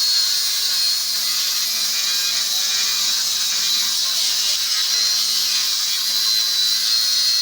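Power sander running steadily on a car's body panel during body repair: a constant high hiss with a thin, steady whine.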